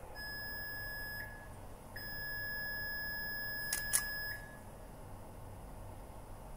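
Electrical test station's beeper sounding a steady high tone, first briefly and then for about two and a half seconds, while a high-voltage insulation (hi-pot) test runs. Two sharp clicks come just before the second tone stops.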